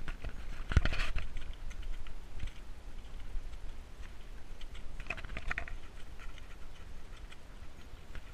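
Horse being ridden over grass: light, irregular clicking and rattling of tack and gear jostling with the horse's movement, over a steady low rumble. Brief louder bursts come about a second in and again around five seconds in.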